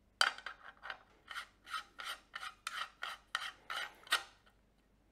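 Metal step-down adapter being screwed by hand onto the threaded front of a ZWO electronic filter wheel: a run of about a dozen short rasping scrapes, roughly three a second, as the threads rub with each twist, stopping about four seconds in.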